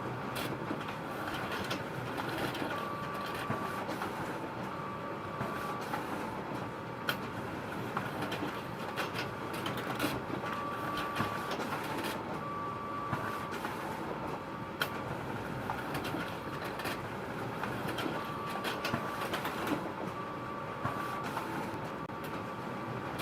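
Photocopier running steadily, with frequent sharp clicks and a short high whine that comes and goes every couple of seconds.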